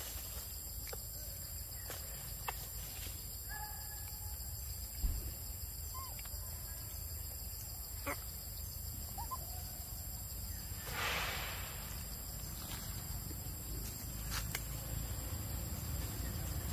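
Forest ambience: a steady high insect drone with a few short, scattered chirping calls. A single thump comes about five seconds in, and a brief rustling hiss about eleven seconds in.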